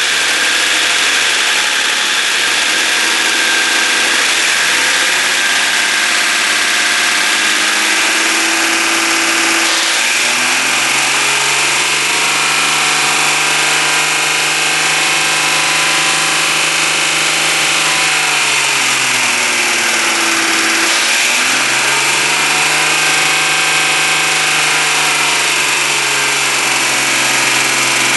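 BMW E39 engine running with an abnormal noise: it idles, is revved up and held about ten seconds in, drops back near twenty seconds, then is raised again. The owner suspects the lifters or the VANOS camshaft system.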